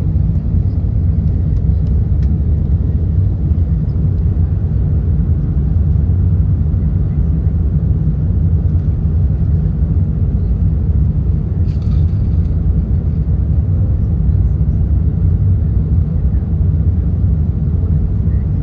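Steady, loud low rumble inside the cabin of an Airbus A380, its Rolls-Royce Trent 900 engines and the airflow heard through the fuselage, with a faint click about twelve seconds in.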